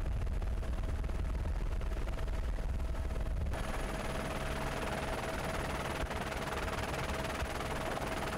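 Helicopter noise heard from aboard during aerial filming: a dense low rotor chop with a steady engine whine above it. It turns abruptly brighter and hissier about three and a half seconds in.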